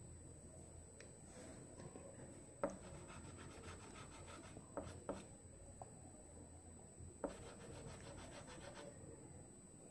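Fingers rubbing and blending soft pastel on paper, a faint dry rubbing, with four soft taps scattered through.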